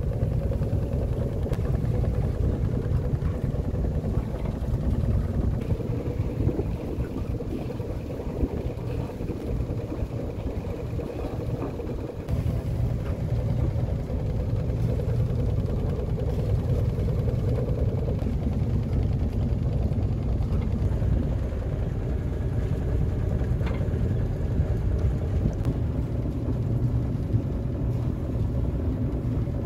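A sailboat's inboard engine running steadily under way, a low, even drone.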